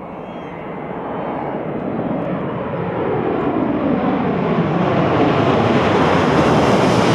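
Jet roar of a Boeing 727's three Pratt & Whitney JT8D turbofan engines as the airliner flies a low approach, gear down, low overhead. It grows steadily louder as the jet closes in and passes over.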